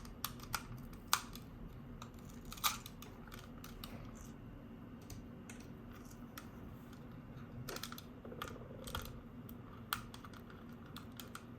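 A prying tool working at a computer mouse's stick-on feet: scattered small clicks and scrapes of tool on plastic. The sharpest ticks come in the first three seconds, with a few more near the end.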